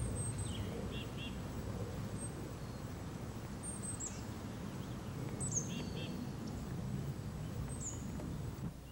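Small wild birds chirping: short, thin, high notes, some falling in pitch and some in quick pairs, every second or two over a low, steady outdoor background noise.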